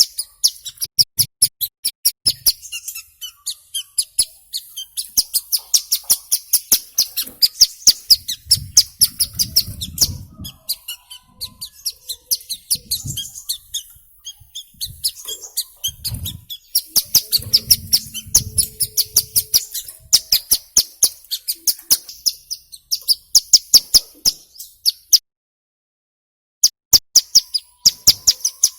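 Ciblek gunung, a small prinia, calling in a fast, unbroken train of sharp, high chirps, about four to five a second, with a brief pause near the end.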